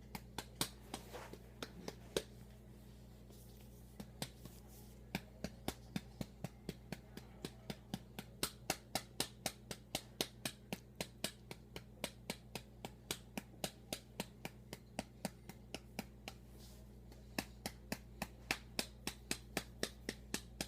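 Hand patting the back of an electronic baby doll to make it burp: sharp pats, a few scattered ones at first, then a quick, even run of about three a second, over a steady low hum.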